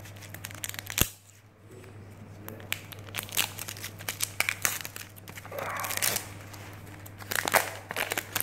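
Clear plastic shrink wrap being torn and peeled off a cardboard iPhone box, crinkling and crackling in many short bursts, with one sharp tap about a second in, over a steady low hum.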